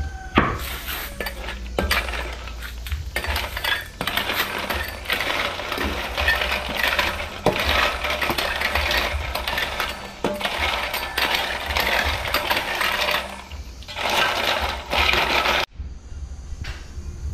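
Apple snail shells clattering and clinking against each other and the aluminium basin as they are stirred in water with a stick, with some sloshing. The clatter stops abruptly near the end.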